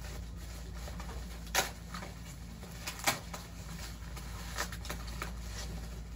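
Light clicks and taps of a small package's contents being handled and checked, two of them sharper, about a second and a half and three seconds in, over a steady low hum.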